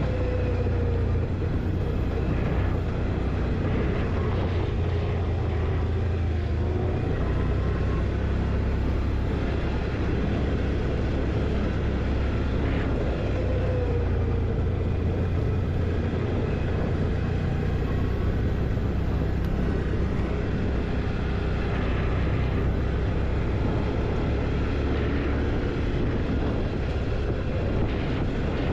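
Quad bike (ATV) engine running steadily while riding, a constant low drone with no breaks.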